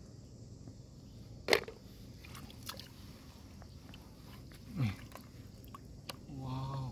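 Clam shells clicking and knocking against each other in a hand as they are picked from a shallow rock pool, with one sharp, loud click about a second and a half in. A man gives a short hum near the end.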